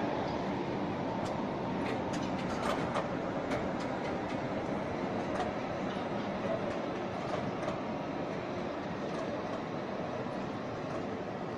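Tatra KT4 articulated tram running along street track and moving off, a steady rolling rumble with a few scattered clicks, easing slightly as it draws away.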